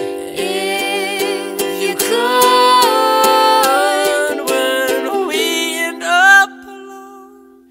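Strummed ukulele with wordless sung harmony: long held notes with vibrato over the strums. About six and a half seconds in, the voices stop and the last chord rings on, fading out.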